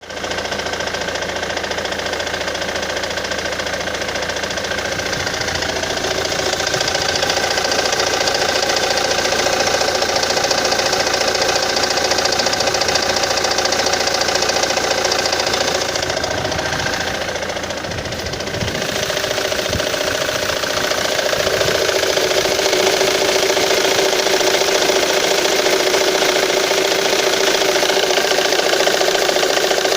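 Ford Mondeo Mk3 car engine running steadily with a knocking noise whose cause is unknown to the owner. The sound dips briefly a little past halfway, then carries on.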